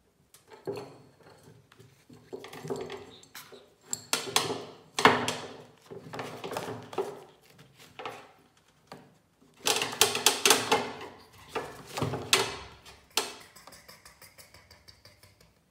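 Kitten licking and nosing a small, emptied food dish, the dish knocking and scraping on the tray in irregular clicks and clatters, with a quick run of clicks about ten seconds in.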